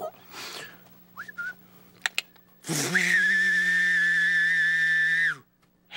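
A man making a vocal sound effect: a short rising chirp about a second in and a click, then a loud, steady whistle-like tone held for about two and a half seconds that drops off at the end.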